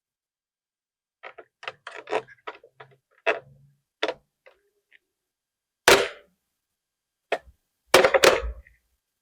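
A telephone being handled for foley: a quick run of small plastic clicks and knocks, then a few separate sharper clacks, like a handset being lifted and set down and its buttons pressed.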